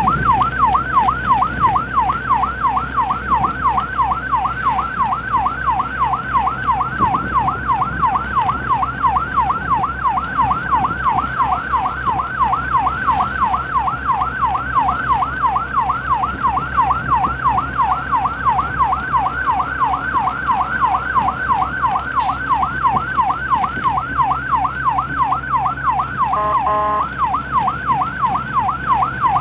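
Emergency vehicle's electronic siren in fast yelp, sweeping up and down about four times a second without a break, over a steady low engine hum. A short horn blast sounds about three seconds before the end.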